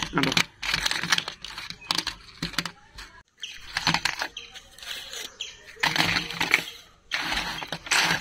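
Small cardboard matchboxes handled and dropped onto a wooden table and pushed into a heap: a run of irregular light clatters and knocks with rustling in between.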